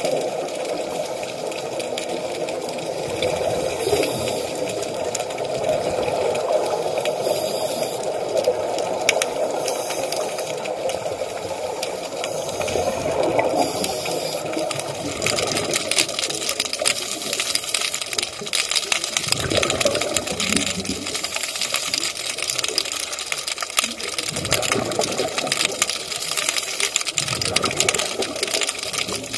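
Underwater sound of scuba divers' exhaled regulator bubbles, a rushing, gurgling wash that comes in bursts, with a dense crackle of fine clicks through the second half.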